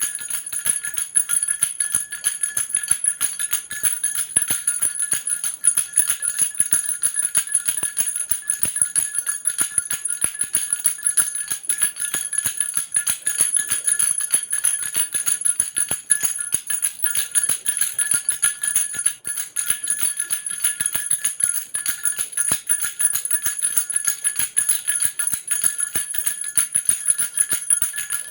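Baby rattle with small bells shaken continuously, jingling in an even, unbroken stream of rapid clicks and ringing.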